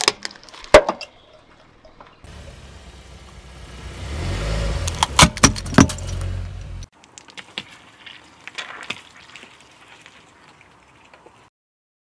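A car tyre rolling slowly over small objects on pavement and crushing them with sharp cracks and crunches: a couple near the start, a louder cluster about five seconds in over the low rumble of the rolling car, then fainter crackling.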